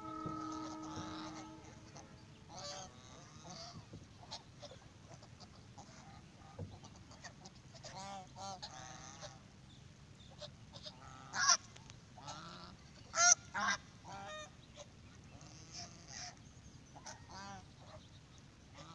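A flock of domestic geese honking, many short calls overlapping, with a few much louder honks in the second half.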